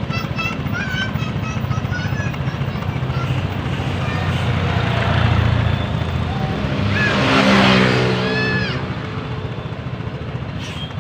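Engine and road noise of riding in traffic, swelling into a loud rush about seven seconds in as a vehicle passes close by.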